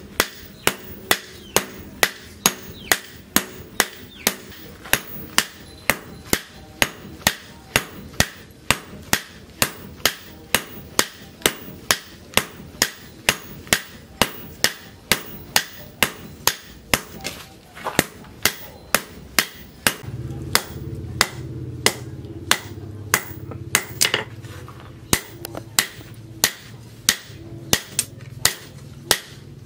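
Hand hammer striking a red-hot leaf-spring steel knife blade on a steel post anvil, sharp metal-on-metal blows at about two a second as the blade is hand-forged. A low steady hum comes in about two-thirds of the way through.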